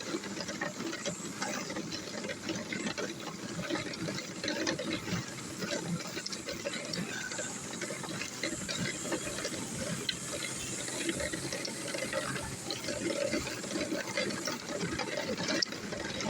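Push lawnmower being wheeled along, its wheels and loose parts making a steady clattering rattle of many small clicks.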